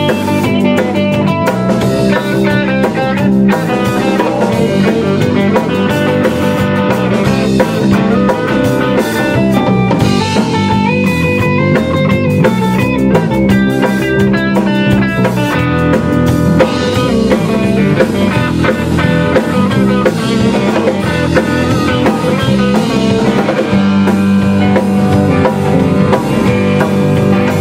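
Live rock band playing an instrumental passage: electric guitar over a drum kit, with no singing.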